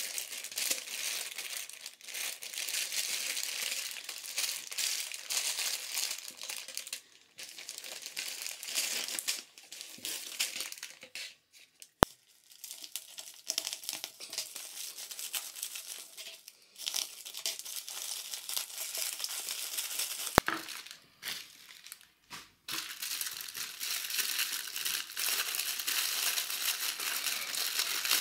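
Thin plastic bags crinkling and rustling as they are handled and opened, in uneven spells with short pauses. One sharp click a little before halfway through stands out as the loudest sound.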